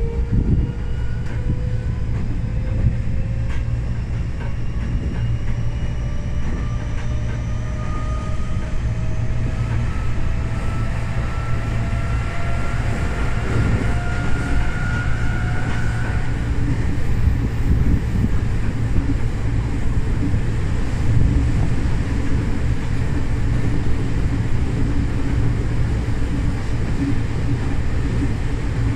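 Running noise inside a Tokyo Metro 05 series electric train car. A whine from the traction motors rises steadily in pitch as the train picks up speed and fades out a little past halfway, when the train stops powering. Underneath is a constant low rumble of the wheels on the rails.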